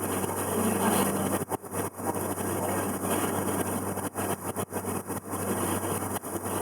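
River cruise boat's engine running with a steady low hum under a constant rushing noise.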